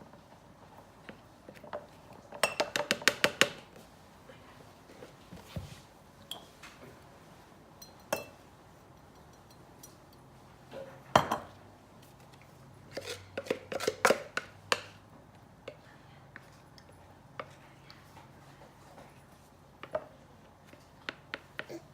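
A utensil clinking and tapping against a mug and mixing bowl while batter and cinnamon sugar are spooned in layers: a quick run of about ten taps a few seconds in, a single sharp knock about halfway, then another cluster of clinks soon after.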